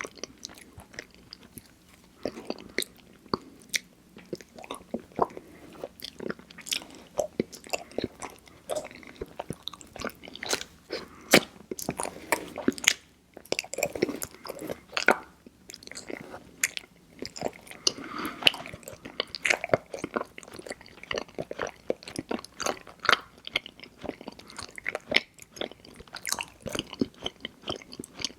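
Close-miked chewing of mochi ice cream: soft sticky smacks and wet mouth clicks in an irregular stream.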